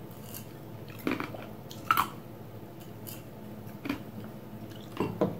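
A person drinking juice from a glass: a handful of short, separate sips and swallows over a low room background, the last two close together near the end.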